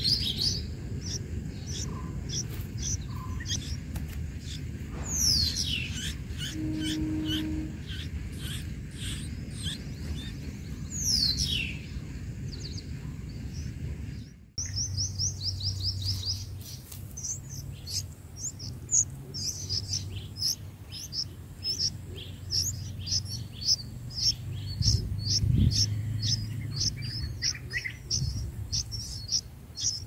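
Red-vented bulbul nestlings begging for food: a stream of short, high chirps that becomes dense and rapid about halfway through. Two quick downward-sliding calls come in the first half.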